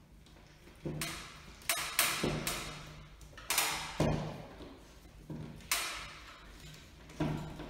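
Irregular knocks and taps, about nine in all, each sharp at the start and dying away quickly, from fixing a smoke alarm and its mounting in place. A faint low hum runs underneath.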